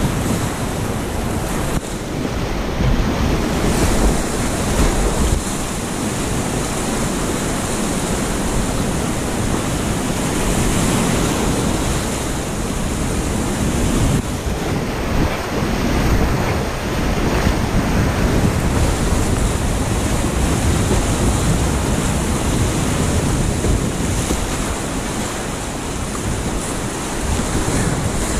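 Whitewater rapids rushing loudly and steadily around a kayak running them, with water splashing up at the camera.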